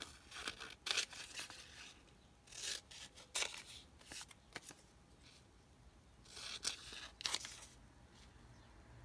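Scissors snipping through a tissue-paper print backed with printer paper: faint, short cuts with pauses between.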